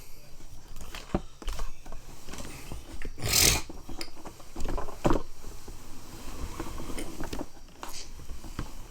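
Handling noise: scattered knocks and clicks, with a short rustle about three and a half seconds in.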